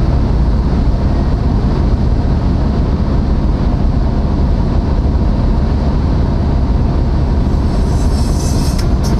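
Steady road noise inside a moving car's cabin at highway speed: an even, heavy low rumble of tyres and engine.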